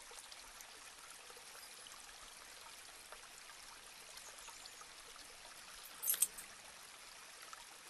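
Faint steady room hiss, with one brief scratchy rustle about six seconds in.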